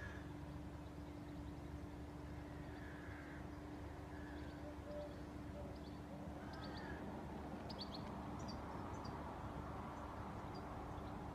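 Faint outdoor ambience: birds calling over a steady low hum, with a few short harsher calls and, from about the middle on, quick high chirps.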